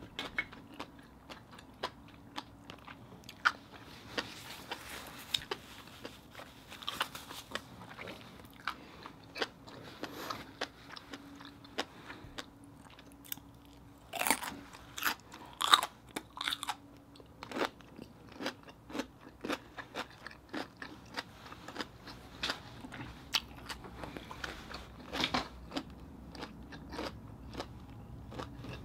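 A person chewing a big bite of baked oyster topped with fish roe and green onions: many short clicking, smacking mouth sounds, busiest about halfway through.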